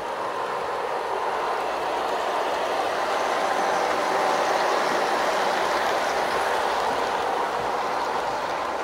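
O-scale model train running past on layout track: a steady rolling noise of the locomotives' wheels and motors, growing a little louder as it passes closest about four seconds in, then easing off.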